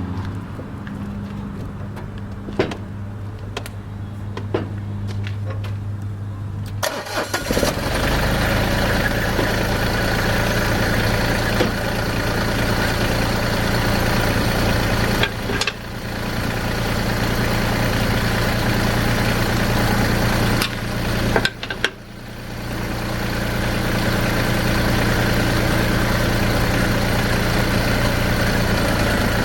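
Massey Ferguson GC2310 subcompact tractor's diesel engine running steadily at idle, then louder and fuller from about seven seconds in. It briefly drops away twice, near the middle and about two-thirds through.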